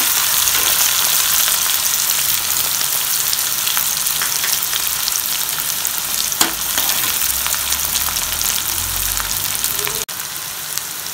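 Chopped onions sizzling in hot oil with tempering spices, stirred with a steel spatula, with one sharp click about six seconds in. The sizzle drops suddenly near the end.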